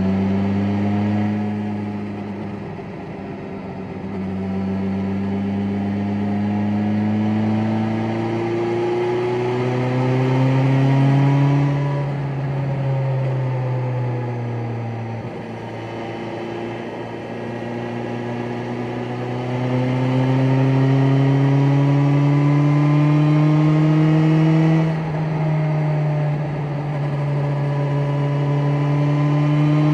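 BMW S1000XR's inline-four engine pulling in sixth gear at low rpm, its pitch rising and falling slowly several times as the throttle is opened and eased, with a brief dip near the end before it climbs again.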